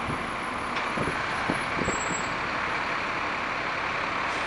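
Steady traffic noise from cars and a city bus passing close by, with a few short low thumps between one and two seconds in.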